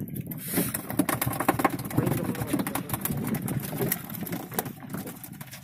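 Rapid, irregular knocking and rattling as a freshly caught tuna is handled and unhooked on a small boat, with men's voices underneath.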